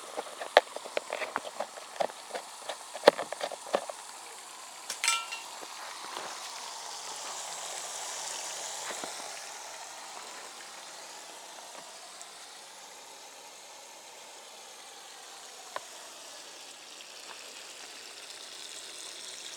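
Water from a garden hose running into a water-filled pipe set in a hole in the ground: crackling, popping splashes over the first few seconds, then a steady hiss of running water.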